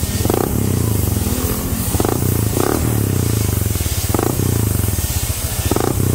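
Honda Click scooter's stock single-cylinder engine running at idle through an aftermarket Powerpipe exhaust with a stainless tip: a steady, low, pulsing exhaust note with a few brief louder puffs.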